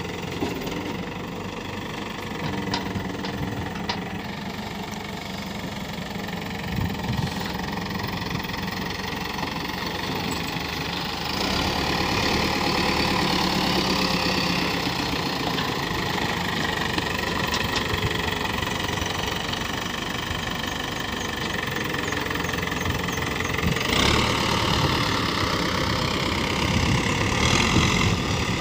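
Caterpillar 424B backhoe loader's diesel engine running steadily as the machine works, growing louder about a third of the way in and again near the end as it takes on more load.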